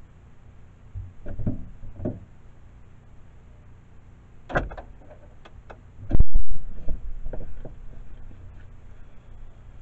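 A vehicle's door being opened: two dull thuds about a second in, a sharp latch click, then a very loud knock a moment later, followed by smaller clicks and knocks.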